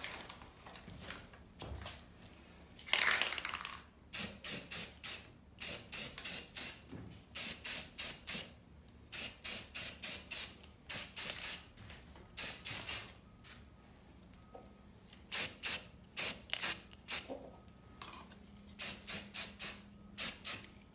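Aerosol can of Rust-Oleum primer spraying in short hissing bursts, mostly in quick runs of three to five, with one longer spray about three seconds in.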